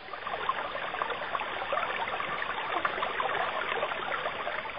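Running water of a shallow stream, steadily babbling and trickling with many small splashes and gurgles.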